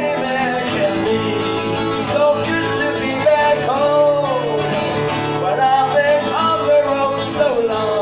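A man singing into a microphone while playing an acoustic guitar, one performer with voice and guitar together.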